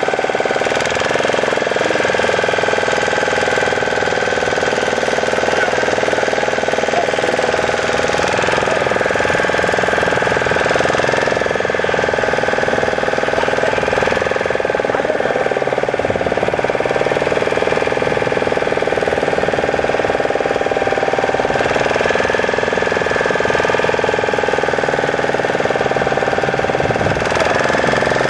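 A boat's engine running steadily and loudly with a knocking chug, its pitch rising and falling slightly now and then.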